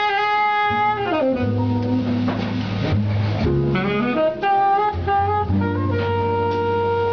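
Small jazz band playing live. A tenor saxophone leads a melodic phrase over double bass, slides down about a second in, and holds one long note near the end.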